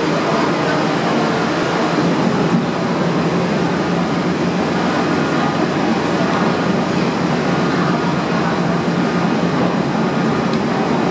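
Star Ferry's engine running steadily as the ferry comes alongside the pier, a constant hum with a rushing noise over it.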